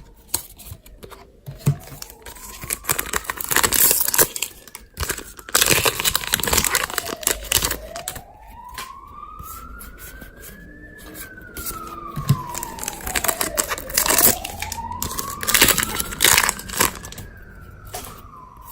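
An emergency-vehicle siren wails in the distance, rising and falling slowly about once every six seconds. Over it, foil booster-pack wrappers tear and crinkle in several loud bursts, and cards are handled.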